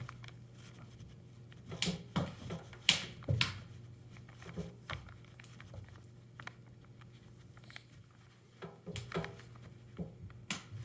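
Scattered soft clicks and knocks of hands handling a pre-oiled foam air filter and its cage for a two-stroke dirt bike, in small groups with pauses between, over a steady low hum.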